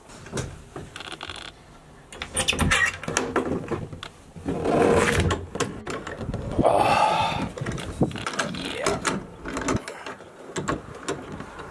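Overhead deck hatch being unlatched and pushed open: clicks and rattles from the latch handles and the stainless hatch stay arm, with two longer, louder scraping sounds near the middle.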